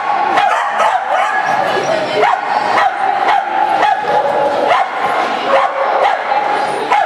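A dog barking repeatedly in short barks during an agility run, over a steady hum.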